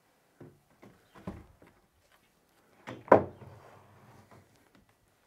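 Light knocks and bumps of a fascia board being handled and pressed into place against a roof eave, with one louder knock about three seconds in.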